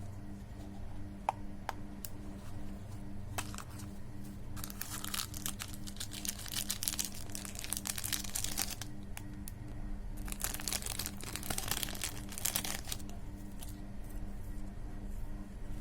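Plastic candy wrappers being crinkled and torn open, in two long rustling stretches about five and ten seconds in, with scattered small clicks between, over a steady low hum.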